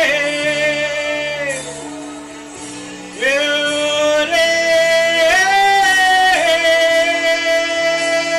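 Worship music: a voice singing long, held wordless notes that slide down, fade, then return about three seconds in and step up and back down in pitch, over steady sustained instrumental chords.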